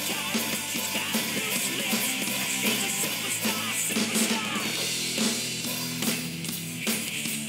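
Hard rock music with distorted electric guitar and a driving drum beat with cymbal crashes, the drums played along on a virtual drum-kit app.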